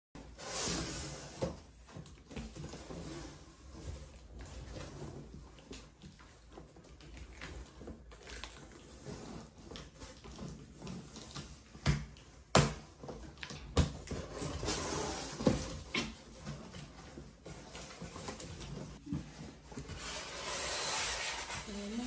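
Cardboard box of a computer monitor being handled and opened: flaps rustling and scraping, with a few sharp knocks in the middle. Near the end, a louder rustle as the polystyrene foam packing is lifted.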